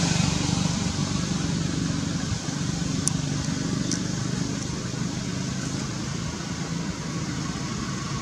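An engine running steadily nearby with a low, even hum, and two faint clicks about three and four seconds in.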